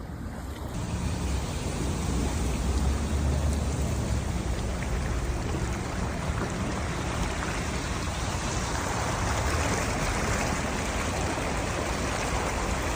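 Heavy rain falling, a steady hiss with a low rumble underneath, setting in just under a second in.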